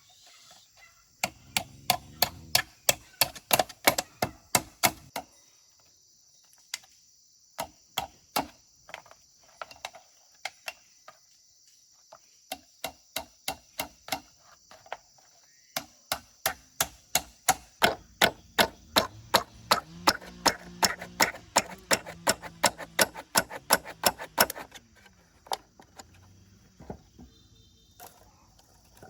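A blade chopping at wood in quick, steady strokes, about three to four a second, in several runs with short pauses. The longest run, in the second half, goes on for about nine seconds. A steady high insect buzz runs underneath.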